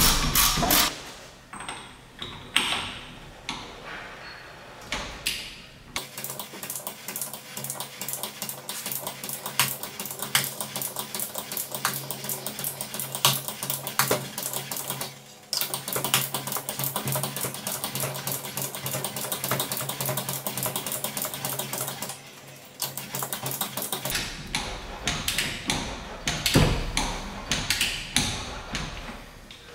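Hand ratchet wrench clicking in quick runs as it drives in the rear wheel bearing's retaining bolts, with a few short pauses.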